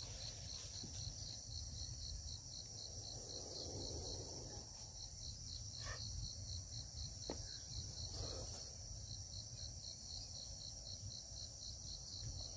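Steady high-pitched chorus of insects in the surrounding forest, pulsing about three times a second, over a low rumble. Two faint ticks come in the second half.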